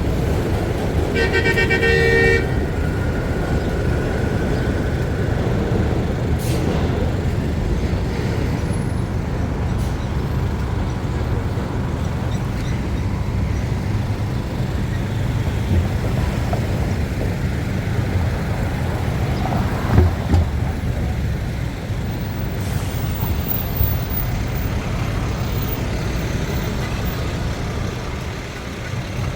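Steady city street traffic rumble, with a vehicle horn honking once for about a second and a half near the start.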